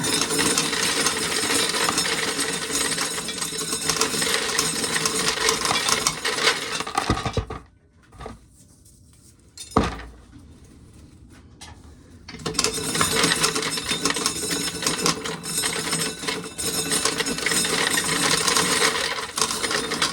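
Corn sheller stripping dry kernels from the ears, with a dense rattling clatter of kernels showering into a metal pail. The rattle stops after about seven seconds, one knock sounds in the pause, and the shelling starts again about twelve seconds in.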